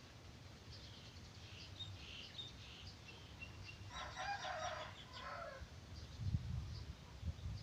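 A rooster crowing once, about four seconds in, with small birds chirping around it. Low thumps follow near the end.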